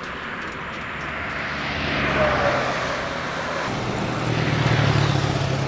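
Road traffic: a vehicle passes, loudest about two seconds in. Then a low engine hum of approaching motorcycles grows louder near the end.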